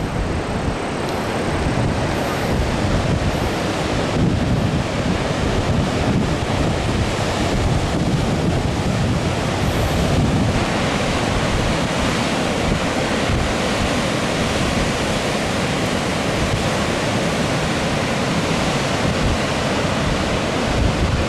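Heavy surf of a rough sea, high waves crashing and washing continuously, left by a passing typhoon; wind buffets the microphone with uneven low rumbles.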